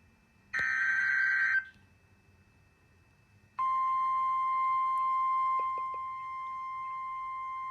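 Emergency Alert System alert tones: a burst of SAME digital header data about a second long, then after a short gap a single steady attention tone, the 1050 Hz NOAA Weather Radio tone, starting about three and a half seconds in and dipping slightly in level near the end.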